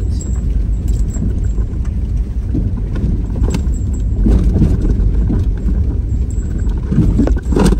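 Steady low rumble of a vehicle on the move, with a few sharp knocks and rattles over it, the loudest just before the end.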